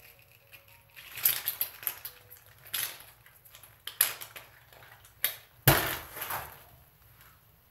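Mason jar of fermented guacamole being twisted open under gas pressure built up by fermentation, the mash exploding out under the lid in a run of short noisy bursts. A sharp crack about three-quarters of the way through is the loudest moment.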